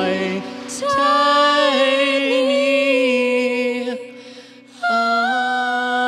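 A man and a woman singing into microphones, holding long sustained notes. The sound drops away briefly about four seconds in, then a final long note is held steady.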